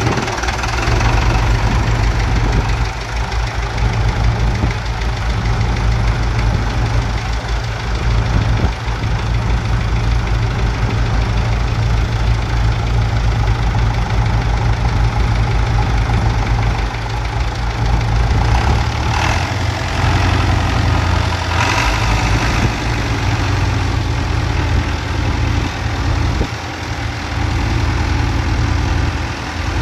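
Long 550 tractor's diesel engine running steadily while the tractor is driven around at low speed.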